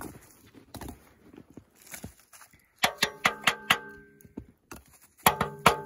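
Dry split kindling sticks knocking together as they are stacked criss-cross in a fire pit, each knock ringing briefly like a wood block. A quick run of about five knocks comes about three seconds in, and three more near the end.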